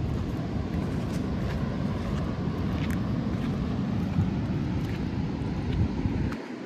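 Wind buffeting the microphone in a steady low rumble, with beach surf behind it; the rumble cuts out briefly near the end.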